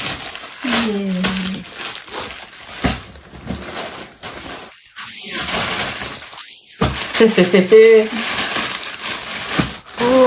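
Plastic mailer bag and the plastic-wrapped jersey inside it rustling and crinkling as they are pulled open and handled, with irregular crackles. Short bits of voice come in about a second in and again around seven seconds in.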